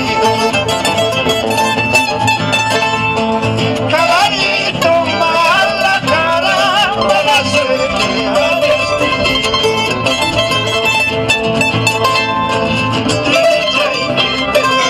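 Background music with plucked strings, running steadily throughout.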